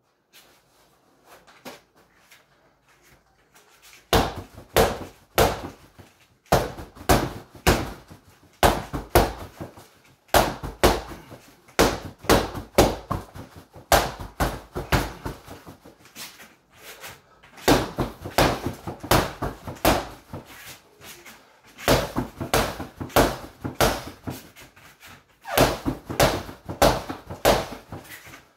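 Boxing-gloved punches landing on a freestanding torso punching dummy's padded chest protector and head. After a few quiet seconds they come as fast flurries of sharp slaps and thuds, several a second, with short pauses between combinations, in a small room.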